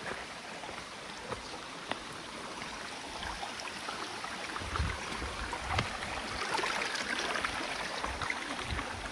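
Steady rush of flowing water, growing louder from about the middle of the stretch, with wind buffeting the microphone in a few low thumps.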